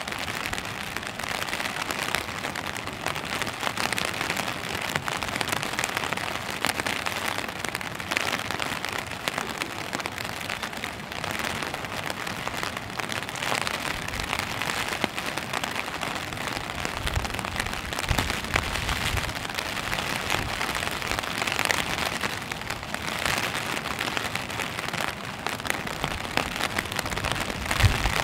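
Steady rain falling on wet stone paving, an even hiss of drops, with a few soft low thumps in the second half, the loudest near the end.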